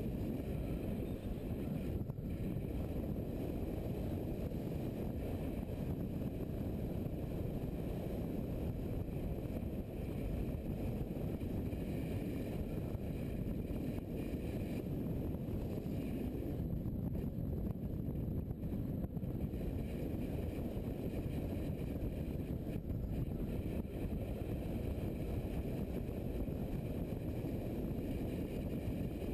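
Steady muffled rumble of an adventure motorcycle cruising at a constant speed: engine, road and wind noise on the bike-mounted camera's microphone.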